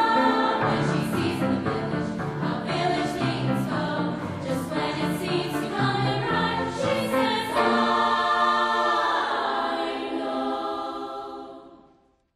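Choir singing as background music, ending on a long held chord that fades out near the end.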